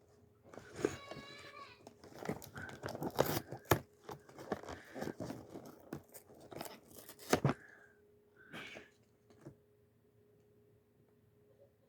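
Cardboard and plastic packaging of a Lego advent calendar being torn and crinkled, with scattered clicks and rustles, going nearly quiet for the last few seconds.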